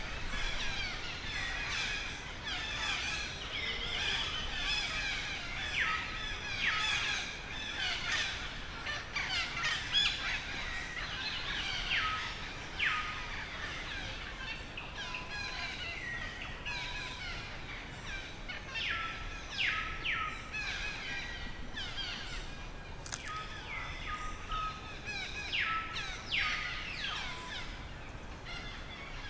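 Many birds chirping and calling together outdoors: a continuous chorus of short chirps and quick downward-sweeping whistles, some ending on a short steady note.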